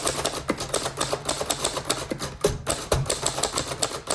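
1926 Underwood four-bank manual typewriter being typed on: a quick, uneven run of keystroke and typebar clacks, several a second, with a heavier knock about three seconds in.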